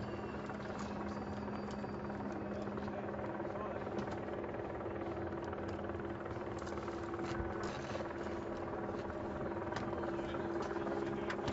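Steady engine drone with a constant hum, over outdoor background noise and a few faint clicks.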